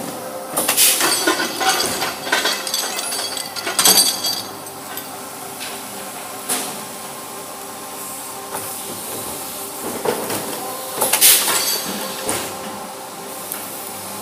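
Automatic chain-making and welding machines running with a steady hum, broken by bursts of clinking steel chain links and a crackling hiss from the link welding. The loudest bursts come about a second in, near four seconds and about eleven seconds in, with single clanks between.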